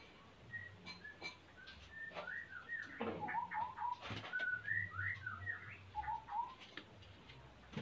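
White-rumped shama singing a run of short whistled notes and slurred trills, busiest through the middle of the stretch, with a few light taps. The singer is the male, in breeding condition and courting.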